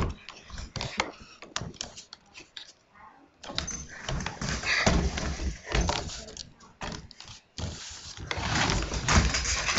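A yellow Labrador moving about on a tile floor: its collar tags jangle and its claws tap and click on the tiles in short, irregular bursts.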